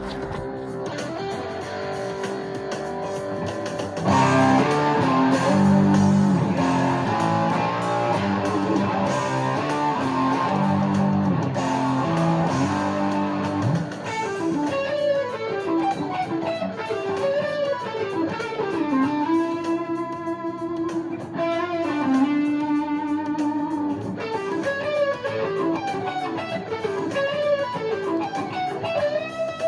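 Electric guitar playing: softer chords at first, then louder, heavier low riffing from about four seconds in, giving way to fast single-note melodic runs in the second half.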